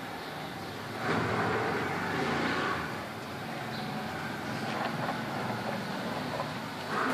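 Road traffic noise: a vehicle passing, swelling about a second in and easing off by three seconds, with another swell near the end.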